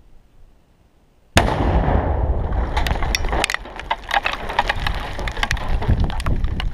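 Demolition charge detonating in an EOD shot hole about a second and a half in: a sudden blast, followed by a sustained rumble with many sharp clicks of rocks and gravel coming down around the microphone.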